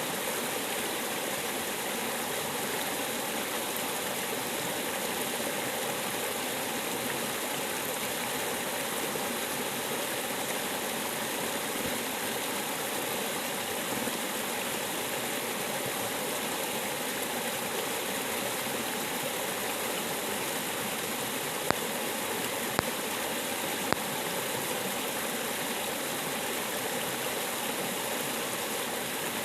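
River water rushing steadily. Three short sharp clicks sound about a second apart, a little over two-thirds of the way through.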